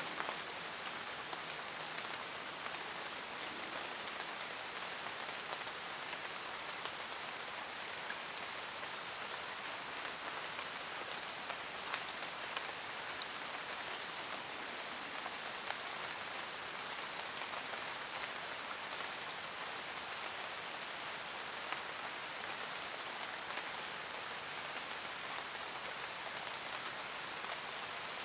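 Steady rain falling in a forest, an even hiss with individual drops pattering on leaves and other surfaces.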